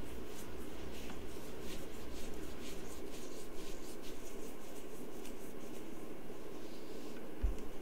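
Steady low hum of microphone room tone, with faint light ticks scattered through the first few seconds and one soft low thump near the end.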